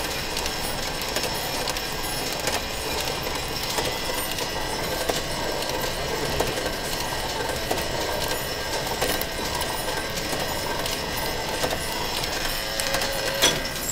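Belt-driven line-shaft lathe running while its cutting tool takes chips off a turning metal workpiece: a steady mechanical running noise with small ticks throughout.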